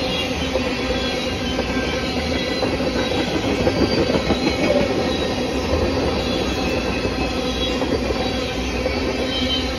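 Loaded tank cars of a Norfolk Southern freight train rolling past close by: a steady rumble and clatter of steel wheels on the rails, with faint, scattered high-pitched wheel squeals.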